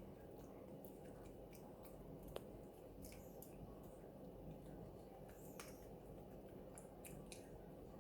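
Dog gnawing on a chew stick: faint, irregular crunching clicks, with one sharper tick a little over two seconds in.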